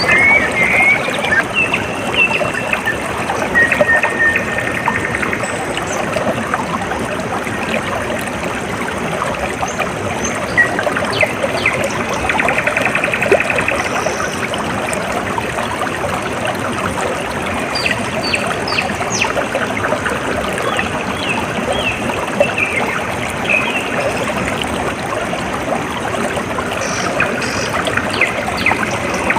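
Water flowing and trickling steadily, with birds chirping in short calls over it and a few brief buzzy trills.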